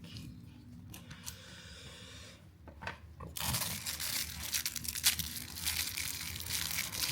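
Crinkling and rustling of packaging being handled, with many small clicks, starting after a few scattered ticks and growing busier and louder a little over three seconds in.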